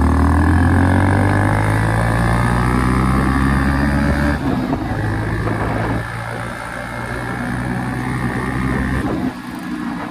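Modified Hero Splendor single-cylinder motorcycle with an aftermarket RX silencer, running under way. The engine note climbs slowly, breaks off about four seconds in, picks up again and holds steady, then drops away near the end.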